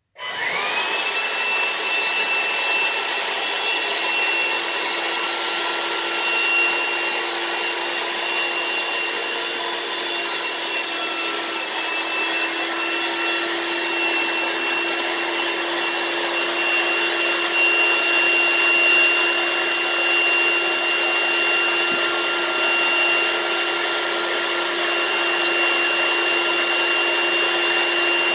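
Electric air pump switching on and spinning up over about half a second, then running steadily with a high motor whine as it inflates a large heart-shaped latex balloon.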